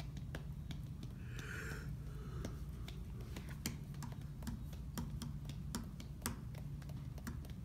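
Irregular light clicks and taps of trading cards being handled and laid on a table, over a steady low hum.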